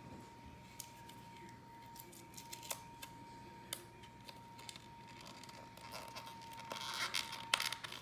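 A cardboard hanger box and its card pack being worked open by hand: scattered small clicks and taps, then rustling and crinkling near the end. A faint steady high tone sits underneath.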